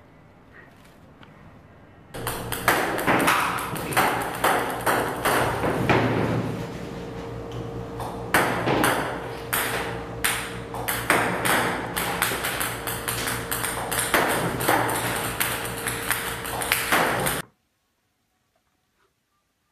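Ping-pong balls fired by a table-tennis robot, bouncing and clattering in a rapid stream of sharp hits over a steady hum. It starts about two seconds in and cuts off sharply near the end.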